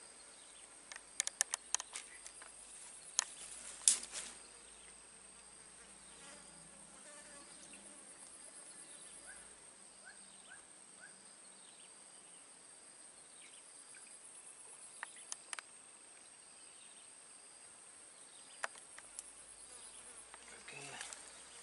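A steady, high-pitched drone of insects. A handful of sharp clicks and taps come in the first four seconds, the loudest about four seconds in, with a few more later on.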